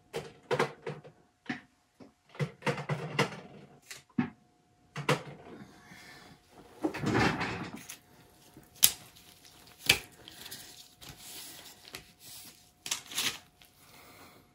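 A string of short knocks, clicks and handling noises from objects being picked up and set down on a hard surface, with a longer rush of noise about seven seconds in and two sharp clicks a second apart a little later.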